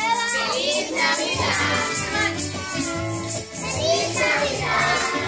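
A Christmas song playing, with young children singing along and shaking jingle bells in a steady rhythm.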